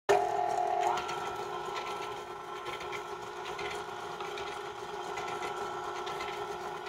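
Electric stand mixer switched on, its motor whine stepping up in pitch about a second in, then running at a steady speed as the flat beater turns through creamed butter and sugar.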